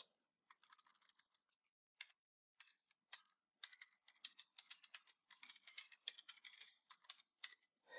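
Computer keyboard typing: a run of faint, quick keystrokes, irregular at first and denser in the second half.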